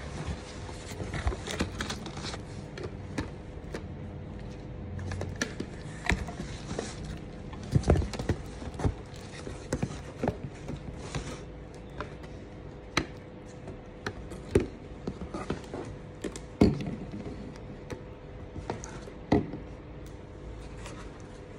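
Plastic jars being lifted out of a cardboard box and set down and stacked on a table, with rustling of the packaging and a series of sharp knocks, several of them louder. A faint steady hum runs underneath.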